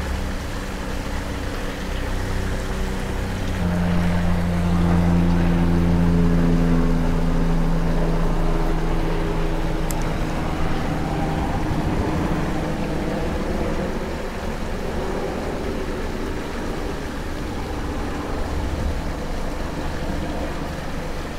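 A motor vehicle's engine running nearby: a steady hum that grows louder and shifts up in pitch in steps from about four seconds in, then fades after about twelve seconds.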